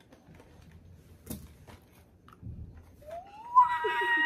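Faint snips and clicks of scissors cutting open cardboard packaging, then, about three seconds in, a loud excited cry from a young woman that rises in pitch and is then held as one long high note.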